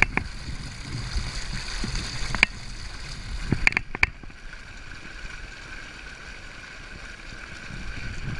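Water gurgling from a small spring welling up out of the ground, with a few sharp clicks: one at the start, one about two and a half seconds in, and a cluster around four seconds.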